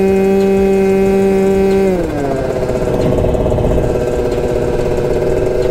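Piaggio Zip SP two-stroke scooter engine running under way with a steady note, then falling in pitch about two seconds in and settling into a lower, wavering note.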